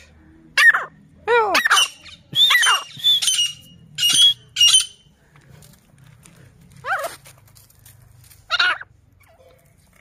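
Female grey francolin (Dakhni teetar) calling: a run of short calls, each rising and falling in pitch, some with sharp high notes, bunched together in the first five seconds, then two more spaced a second or two apart.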